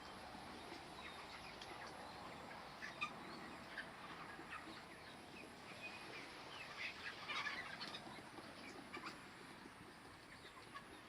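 A flock of broiler chickens in their shed, faint scattered calls and clucks over a steady background hiss, with a busier cluster of calls about seven seconds in.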